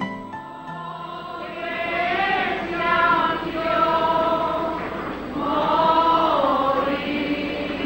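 A group of voices singing a slow chant together in long drawn-out phrases, as in a street procession hymn.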